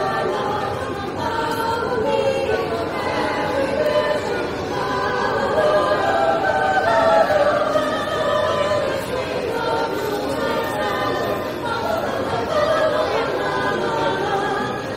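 A vocal group singing in several-part harmony, holding sustained notes.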